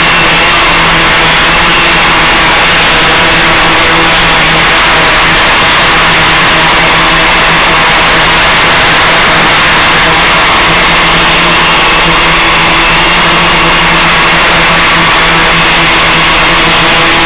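Gaui 500X-S quadcopter's electric motors and propellers in flight, picked up by the onboard microphone and sent over the analogue video link: a steady hum with a constant low tone under heavy hiss.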